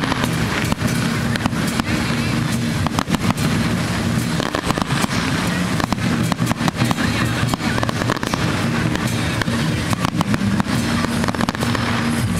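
Fireworks going off in rapid, irregular succession, many sharp bangs and crackles one after another, with music playing underneath.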